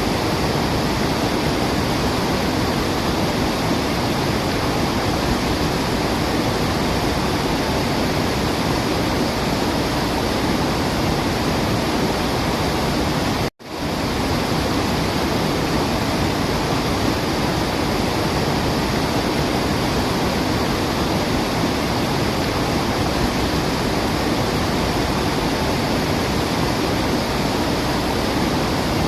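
Waterfall rushing in a steady, dense roar of falling water, with no birdsong standing out. About halfway through the sound cuts out for an instant and comes straight back, as at a loop splice.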